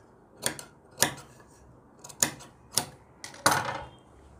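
Tailor's shears snipping through fabric: about five sharp metal clicks of the blades closing, spaced half a second to a second apart, with a short rustle of fabric after the last one.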